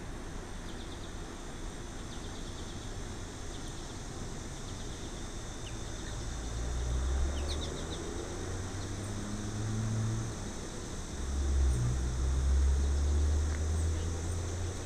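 Small birds chirping faintly in short scattered notes over a steady hiss, with a low rumble swelling up about halfway through and staying loud to the end.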